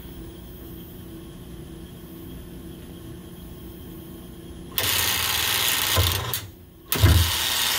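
Tormach lathe turret's indexing motor driving the toothed belt and pulley through a tool change. After a faint steady hum, it runs for about a second and a half, stops briefly, then runs again for about a second as it reverses to lock the turret in place.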